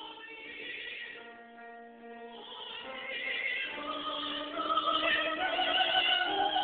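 Classical-style singing in long held notes that step from pitch to pitch. It is soft through the first couple of seconds, then grows steadily louder from about three seconds in.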